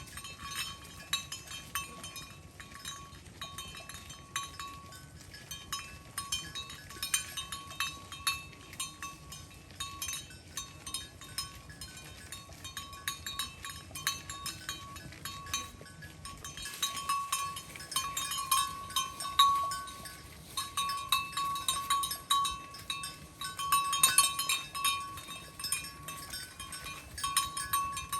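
Bells on grazing cattle clanking irregularly as the cows move and feed, busier about two-thirds of the way through.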